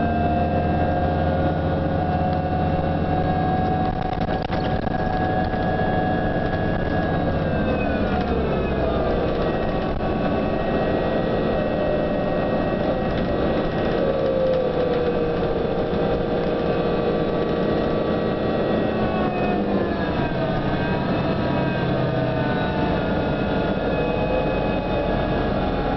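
Cabin sound of a New Flyer DE42LFA diesel-electric hybrid bus's drivetrain: several whining tones over a low running rumble, gliding down in pitch about eight seconds in and again around twenty seconds, then starting to rise near the end. This unusual whine is the bus's distinctive weird sound.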